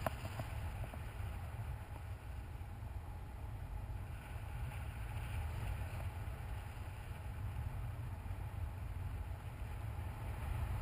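Airflow buffeting the microphone of a camera carried by a paraglider in flight: a steady low rumble with a fainter hiss above it.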